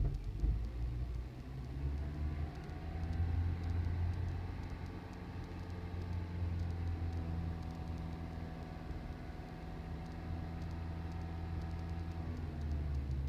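2008 Toyota Prius's 1.5-litre four-cylinder petrol engine starting abruptly and running rough with a low knocking: misfiring caused by failed spark plugs.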